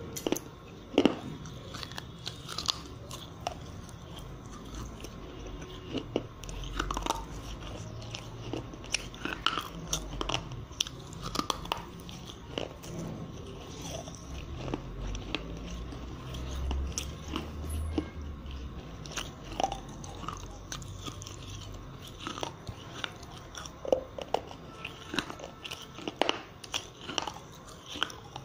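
Biting and chewing broken pieces of fired clay diya lamps: a string of sharp, irregular crunches.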